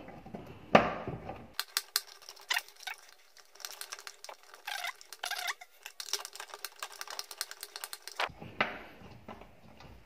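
Light, irregular clicks and taps of a small metal L-shaped key turning and tightening the centre screw of a Sharp top-loading washing machine's plastic pulsator, with one sharper tap about a second in.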